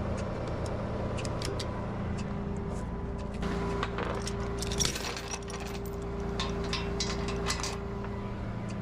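A tow truck's engine idling steadily, with scattered metallic clinks and clicks, and a steady humming tone through the middle.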